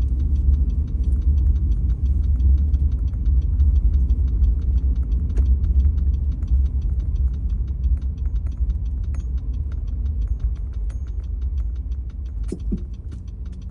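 Steady low rumble of a Honda Ridgeline pickup driving slowly on a snow-covered road, heard from inside the cab. A regular quick ticking runs along with it, and the sound eases off near the end.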